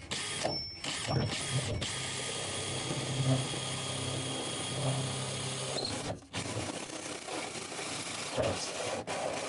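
Cordless DeWalt drill turning a hole saw, cutting a hole through the boat's aluminum side wall. It starts with a few short bursts, then runs steadily under load, stops briefly about six seconds in, and resumes cutting.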